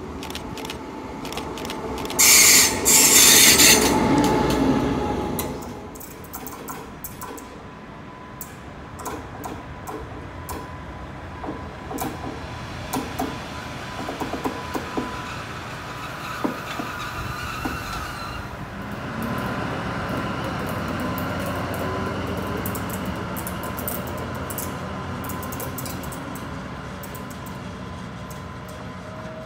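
A loud burst of hissing noise about two seconds in lasts under two seconds. After that a V100-family (class 203) diesel-hydraulic locomotive runs at rest, with scattered clicks. From about two-thirds of the way through its engine gets louder with a slowly rising note as it pulls away.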